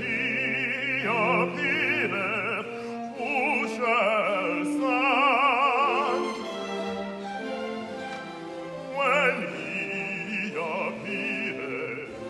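Operatic singing with strong vibrato over an orchestra. The voice drops back from about six to nine seconds in while the orchestra holds its notes.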